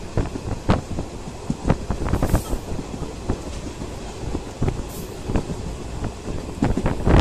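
Train running along the track, heard from on board: a steady low rumble of wheels on rail with irregular knocks and rattles.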